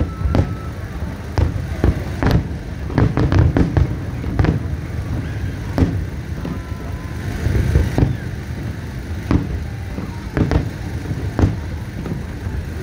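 Aerial firework shells bursting: a quick run of booms and cracks about two to three seconds in, then single bangs roughly once a second, with a low rumble between them.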